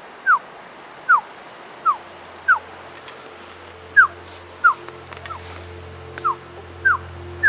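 A bird calling in a rainforest: a series of about ten short whistles, each sliding downward in pitch, repeated a little under once a second. A steady high insect-like tone runs beneath the calls, and a low music drone comes in about two seconds in.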